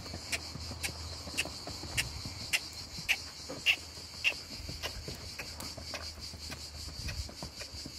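Steady high-pitched drone of cicadas. Through the first half, a regular clicking comes about twice a second, then fades.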